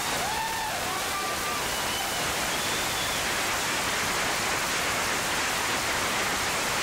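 Audience applauding steadily after a speech, with a few short whoops over the clapping in the first three seconds.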